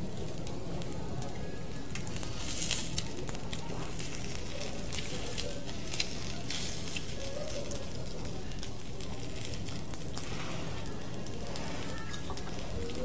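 Assorted beef intestines and fried rice sizzling on a hot pan, with a steady hiss that swells now and then. A metal spoon scrapes and clicks against the pan a few times.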